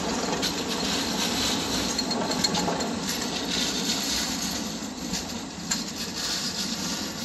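Škoda low-floor articulated tram rolling past on street rails with a steady rumble and hiss and a few sharp clicks, growing quieter in the second half as it pulls away.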